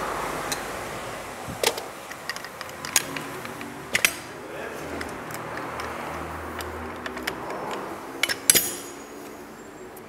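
Steel clinks and clanks of a coil-spring compressor's hooked rods being taken off a car's front strut spring: a handful of sharp metallic knocks a second or more apart, the loudest pair near the end. A steady whir fades out in the first second or so.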